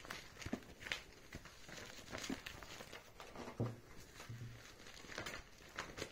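Faint scattered rustling and light clicks of a person moving and handling something close to the microphone, with a couple of brief low creaks about three and a half seconds in.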